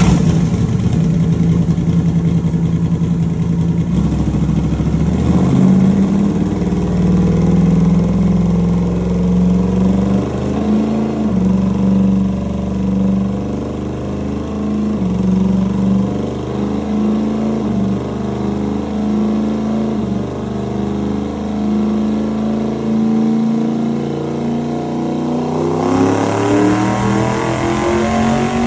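Twin-turbo Ford Coyote V8 in a Fox-body Mustang running on a chassis dyno at steady, slightly wavering revs during a low-boost test pull. The revs climb over the last couple of seconds, then the sound cuts off abruptly.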